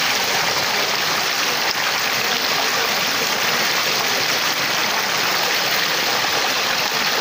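Rushing floodwater: a loud, steady, even rush of water.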